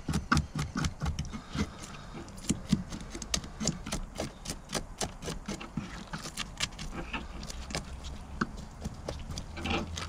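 Back of a knife blade scraping the scales off a small crappie in quick, repeated strokes, several short scratchy clicks a second.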